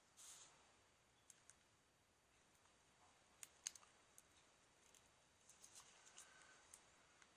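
Faint scattered clicks and a brief scrape as the cracked glass digitizer screen of a tablet is pried up at its edge.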